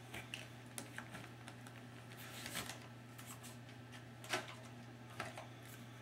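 Scattered light clicks and knocks of hard plastic as a MooSoo stick vacuum's wand sections and handheld body are handled, pulled apart and laid down, with the vacuum's motor off. One knock about four seconds in is the loudest.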